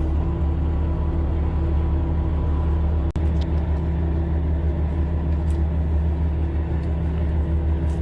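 Fishing boat's engine running steadily under way, a loud, even low hum.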